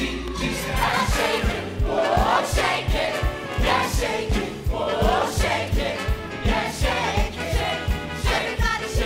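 Music with several voices singing over a steady beat that comes in under a second in.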